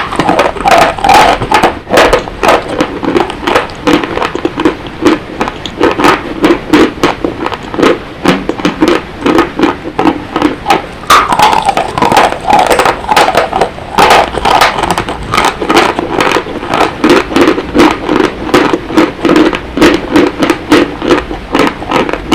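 Dry mountain chalk being chewed: loud, dry crunches, several a second, one after another.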